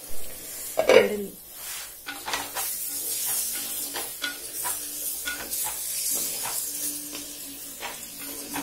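Chicken curry sizzling in an earthenware clay pot, stirred with a slotted spatula that scrapes repeatedly against the pot's sides. One short, louder sound comes about a second in.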